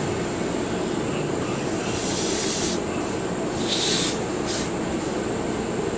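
Three hisses from an aerosol can of brake parts cleaner being sprayed onto revolver parts: a longer burst about two seconds in, then two shorter ones, over a steady background hum.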